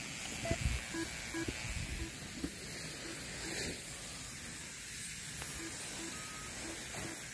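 Steady outdoor hiss, with gusts of wind rumbling on the microphone in the first couple of seconds, and scattered short beeps at several pitches.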